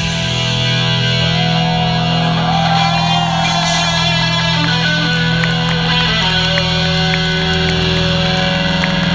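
Live rock band with electric guitars holding long sustained notes over a steady low drone, without a drum beat.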